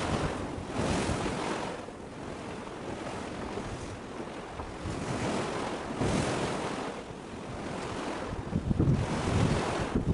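Wind buffeting the microphone in gusts that swell and ease every few seconds, with heavier low rumbling gusts near the end.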